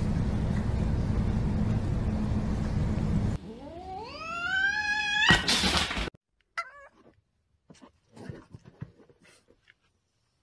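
A steady low rumble, then a cat's yowl rising in pitch over about two seconds, breaking into a short harsh hiss that cuts off abruptly; faint scattered sounds follow.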